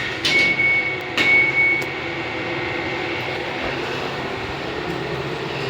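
Two short electronic beeps, each starting with a click, about a second apart, then the steady running drone of a Fujitec lift car travelling up the shaft.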